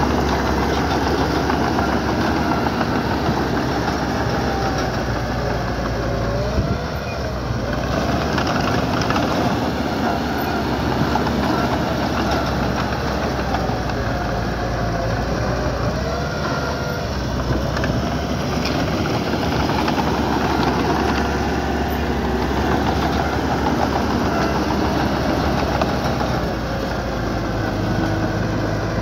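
Diesel engine of heavy earthmoving equipment (small bulldozer or dump truck) running steadily, its note wavering up and down a couple of times.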